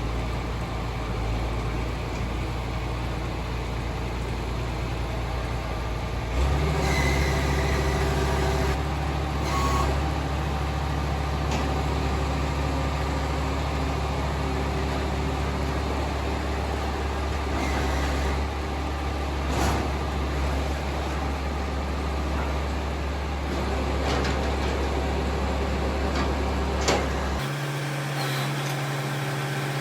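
Tractor engine running steadily under load during hay baling, with a few sharp knocks. The sound changes abruptly about six seconds in and again near the end.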